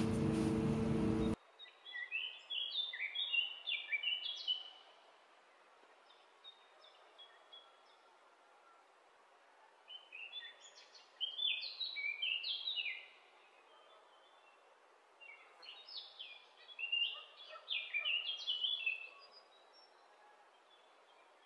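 Birdsong: quick series of short chirping notes in three bouts, with faint hiss between them. A louder steady sound cuts off abruptly about a second in.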